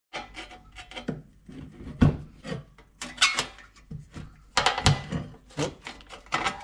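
Hand tin snips cutting through thin aluminium sheet: a series of uneven snips, one or two a second, the loudest about two seconds in and near five seconds.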